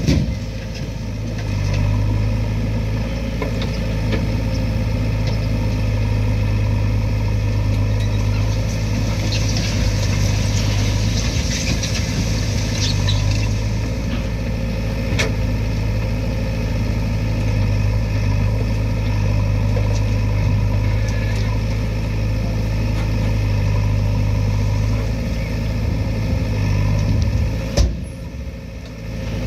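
JCB 3DX backhoe loader's diesel engine running steadily as the backhoe arm digs, with a couple of sharp knocks; the engine sound drops briefly near the end.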